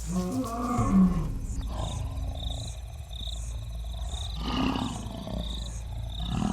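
Lion roaring with deep, pitched calls, loudest about a second in and fading after a second and a half. A high chirping repeats about every three-quarters of a second behind it.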